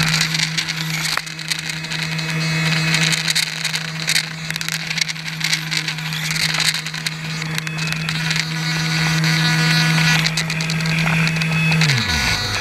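Electric motor and air propeller of a radio-controlled airboat running at a steady pitch, with water and wind hiss. Near the end the pitch falls away sharply as the motor spins down.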